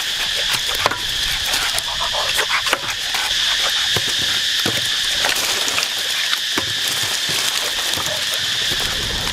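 Dry sticks knocking and clattering as they are laid one by one over a clay pot, with sharp clicks every second or so. Behind them runs a steady high insect buzz.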